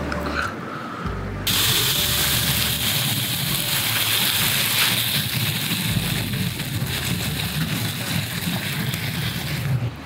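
Chunks of offal (horumon) sizzling hard in oil in a steel frying pan. The sizzle cuts in suddenly about a second and a half in and stops just before the end.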